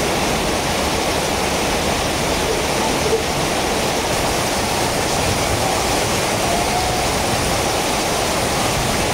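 Steady rush of heavy rain pouring down, mixed with the flow of a river, an even unbroken hiss.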